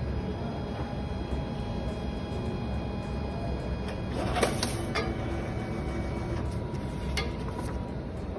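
Steady machine hum with several faint, high, steady tones. There is a brief louder rush of noise about halfway through and a sharp click near the end.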